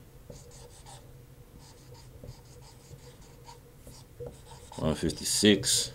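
Marker pen writing on a whiteboard in short strokes, faint and rubbing. A man's voice comes in about five seconds in.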